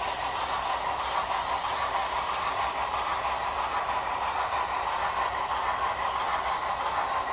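HO scale model train running on the layout's track out of sight, a steady, even rolling noise.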